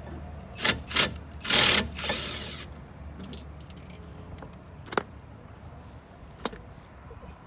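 Hand tools being handled: a few sharp metallic clicks and, near the start, a louder rattling clatter lasting about a second, like bits or sockets shifting in a case, over a steady low hum.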